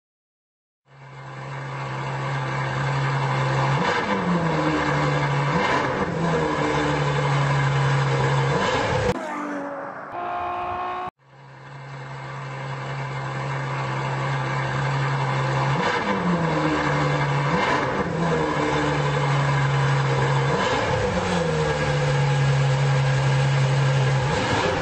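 Car engine running at a steady pitch, with brief quick rises and falls in revs every couple of seconds. It fades in, breaks off about nine seconds in for two seconds of a different sound with a few steady tones, then fades back in and runs the same way again.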